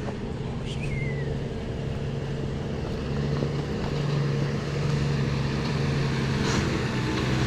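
Heavy diesel engine running steadily, its low drone growing slowly louder.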